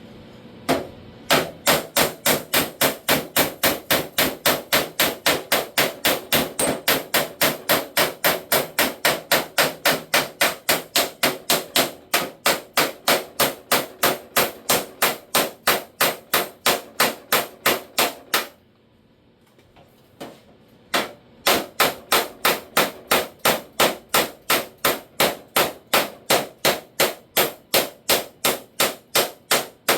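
Body hammer striking a sheet-steel door skin over a dolly in a steady run of about three ringing blows a second, stopping for about two seconds a little past halfway, then carrying on.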